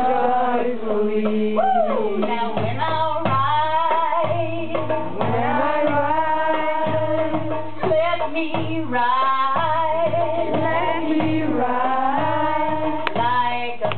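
A woman singing a melody to her own hand-drum accompaniment; the drum comes in after a couple of seconds with a slow, steady beat.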